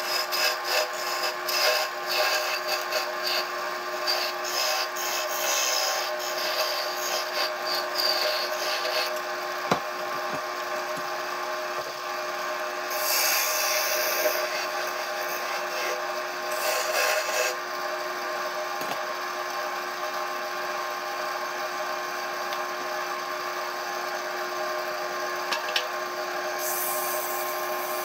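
Wood lathe running with a steady motor hum while a hand-held pad or paper rubs against the spinning spalted cherry goblet, in uneven strokes that grow louder and harsher now and then.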